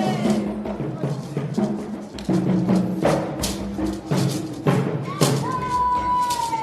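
Music with drum and percussion strokes over a steady low bass line, joined by a single long held high note about five seconds in.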